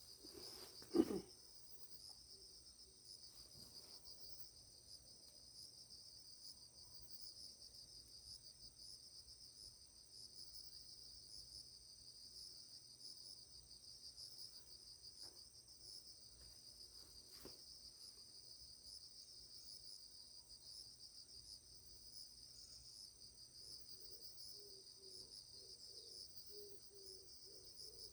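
Steady, high-pitched trilling of insects in the background, with a single thump about a second in.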